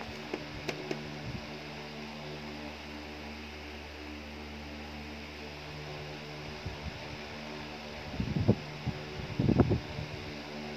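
Steady low background hum with a faint hiss. Near the end comes a short cluster of louder low rumbles and knocks.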